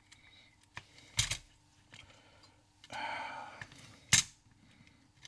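Small clicks and knocks of plastic and metal parts as a Citizen 3½-inch floppy drive is pried apart by hand, with a short scraping rasp near the middle and a sharp snap about four seconds in.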